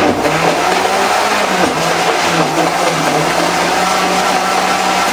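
Countertop electric blender running steadily, its motor blending the layered mix of ingredients in the jar; the motor tone wavers a little in the first few seconds, then holds steady.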